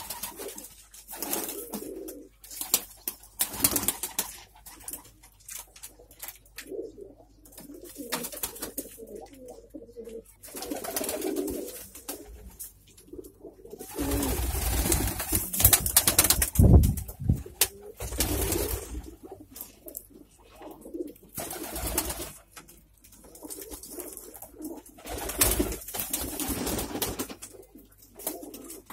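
Domestic pigeons cooing repeatedly, with several loud bursts of flapping and rustling, the longest about halfway through.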